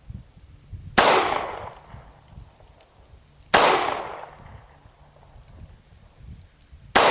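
Three pistol shots from a subcompact Glock handgun, slow aimed fire: one about a second in, one about two and a half seconds later, and one at the very end. Each crack trails off in an echo lasting about a second.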